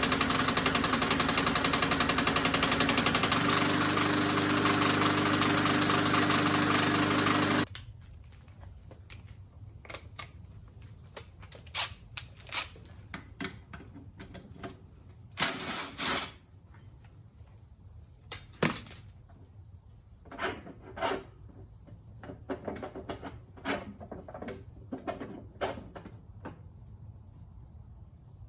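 A small engine running steadily with a fast, even pulse, shutting off abruptly about eight seconds in. Scattered clicks and knocks of metal parts being handled follow.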